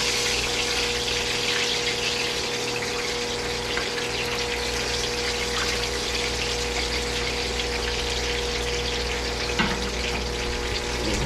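Steady sizzling hiss of food frying in hot oil, with a constant hum underneath.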